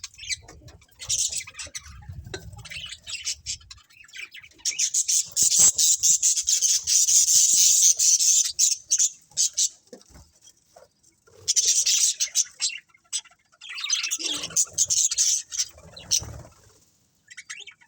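A colony of budgerigars chattering and chirping in fast, high-pitched bursts with short lulls between them, busiest about a third of the way in.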